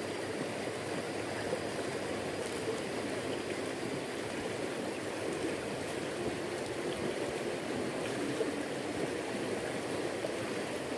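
Fast river current rushing steadily: a constant wash of flowing water.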